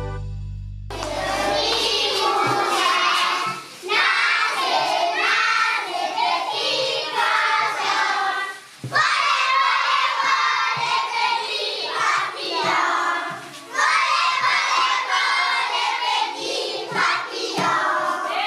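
A held music chord fades and cuts off about a second in. Then a group of children sing together in phrases with short breaks, clapping their hands.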